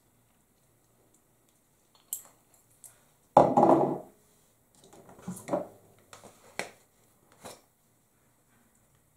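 Spice jars and shakers being handled at the stovetop: a few short clicks and knocks as containers are picked up, set down and opened, with one louder rattling clatter about three and a half seconds in.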